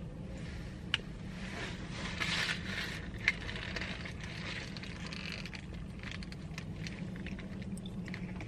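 Foil-lined paper burger wrapper crinkling as it is handled, with chewing, over a steady low hum. Two sharp clicks stand out, about a second in and past three seconds.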